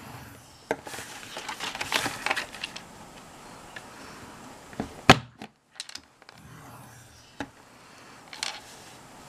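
Stylus scoring tool scraping along the groove of a Stampin' Up! Envelope Punch Board through card stock, then a sharp click about five seconds in as the board's punch is pressed through the card's edge, with light handling of the card and tools.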